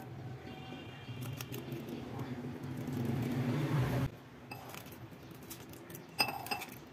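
Rustling and handling of a plastic Oreo wrapper inside a glass, with scattered clicks, stopping abruptly about four seconds in. About six seconds in, a single sharp ringing clink as a steel tumbler knocks against the glass.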